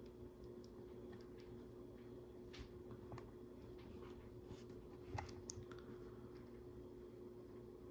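Faint, scattered clicks and light scratches of plastic LEGO pieces being handled and pressed into place, over a faint steady hum.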